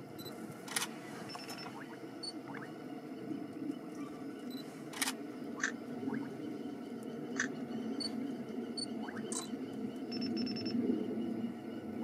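Camera shutter clicking: several single sharp clicks a few seconds apart, over a steady low hum, with a few brief faint high chirps.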